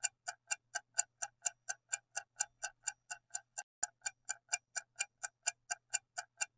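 Ticking clock sound effect, about four even ticks a second, counting down the time to answer a quiz question.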